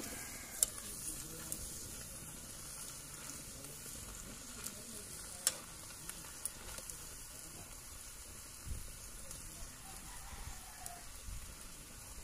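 String beans and moringa leaves sizzling in a wok over a wood fire while being stirred with a metal spatula: a steady hiss with a few sharp clicks.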